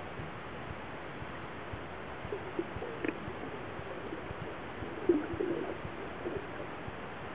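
Underwater pool sound: a steady hiss with a few short, low, hoot-like sounds about two seconds in and again about five seconds in, the second set the loudest.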